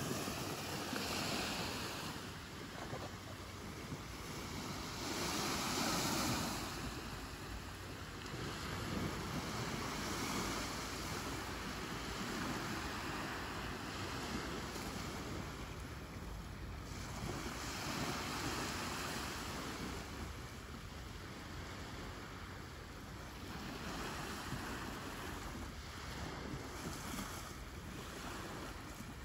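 Small surf waves washing onto a sandy beach, the wash swelling and easing every few seconds, with wind rumbling on the microphone.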